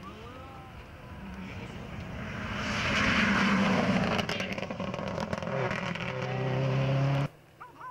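A Subaru Impreza rally car's turbocharged flat-four engine, rising as the car approaches at full speed and loudest as it passes about three seconds in. It crackles and pops as it goes by, then pulls away on a steady engine note. The sound cuts off abruptly about seven seconds in.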